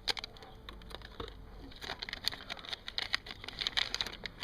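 Plastic packaging crinkling and clicking in irregular bursts as it is handled and opened to unpack a hard drive.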